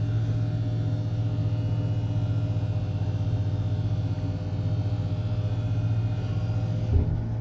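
Schindler DEVE hydraulic lift travelling with a loud, steady rumbling drone and hum from the shaft, which the rider hears as a lift that does not sound good at all. A single knock about seven seconds in.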